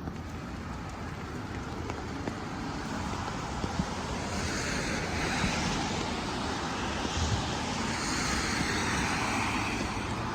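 Traffic passing on a wet road: a steady hiss of tyres on wet pavement that swells from about four seconds in as a vehicle comes by.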